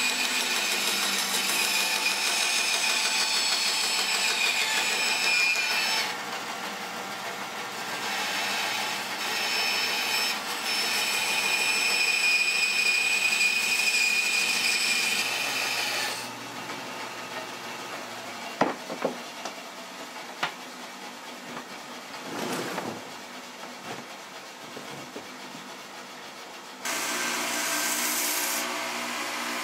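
Band saw running and cutting a wooden ladle blank along a curve, a steady whine with the cutting noise rising and falling. About halfway through it drops to a quieter stretch with a few sharp knocks, and near the end a belt sander runs with the blank pressed against its belt.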